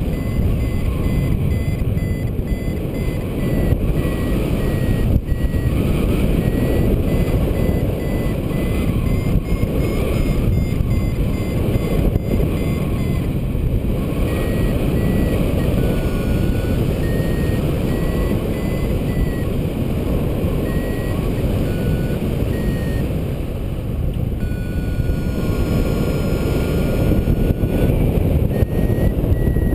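Heavy wind noise from the airflow over the microphone in paraglider flight, with a flight variometer beeping over it, its beeps stepping up and down in pitch with the climb, and a longer steady lower tone about 24 seconds in.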